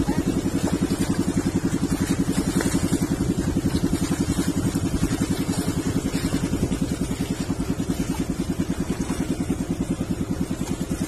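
Small boat's engine running steadily with a fast, even pulse that does not change.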